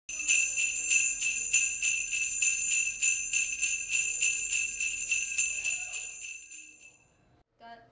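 Sleigh bells shaken in a steady rhythm, about four shakes a second, fading out near the end.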